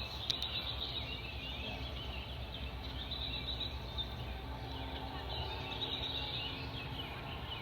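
Small birds chirping and singing, many short overlapping calls, over a steady low hum of outdoor background noise.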